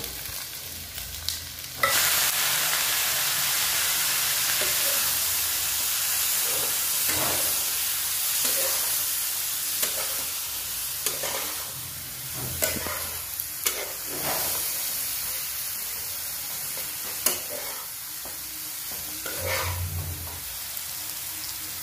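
Onion and green capsicum frying in a kadai, sizzling, the sizzle jumping louder about two seconds in, while a spatula scrapes and knocks against the pan at uneven intervals, stirring freshly added coriander, turmeric and chilli powder into the vegetables to roast the masala.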